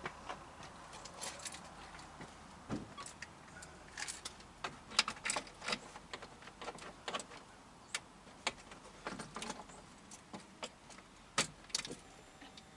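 A bunch of keys jangling and clicking, with irregular light metallic clicks and rattles.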